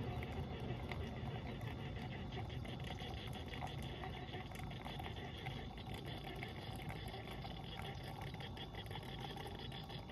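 Single-serve K-Cup coffee maker brewing: a steady low hum and hiss with faint crackling as hot coffee trickles into a glass mug.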